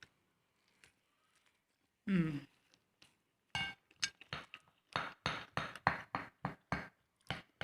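Someone eating crab: a brief falling hum of appreciation, then a run of short, sharp clicks and crunches, about three a second, as the shell is cracked and chewed.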